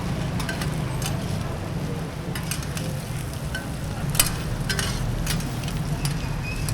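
Food stir-frying and sizzling in a wok, with a metal spatula clinking and scraping against the pan many times at an uneven pace, the loudest clink a little over four seconds in, over a steady low hum.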